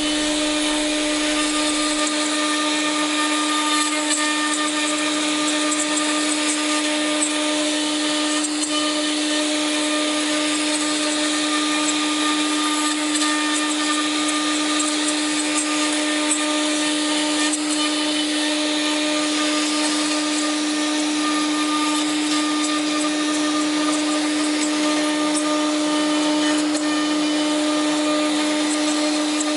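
Spindle of an LH 8101 CNC woodworking machining centre (router) running at speed: a steady whine over a constant hiss.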